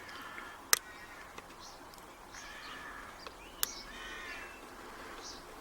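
Two sharp metallic clicks from a pin-tumbler padlock under a tension wrench and pick during single-pin picking, a pin setting into a deeper false set against counter rotation. Faint bird calls sound in the background between them.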